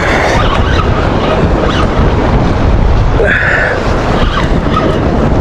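Wind buffeting the microphone in a steady loud rumble, while a Penn Pursuit spinning reel is cranked to bring in a hooked fish. A brief higher buzz comes a little past the middle.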